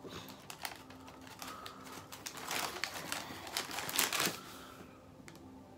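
Light crinkling and small clicks of plastic packaging being handled, in short uneven bursts that are busiest about halfway through.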